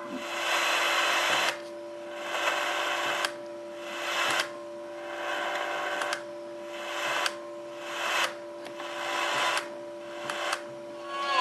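FM radio in a mini USB speaker hissing with static as it seeks between stations: about eight bursts of hiss, each about a second long, that start and stop abruptly, over a faint steady hum.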